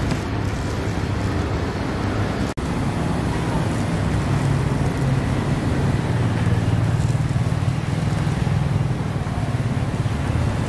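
A motor running steadily under a wash of noise, with a brief sharp cut-out about two and a half seconds in.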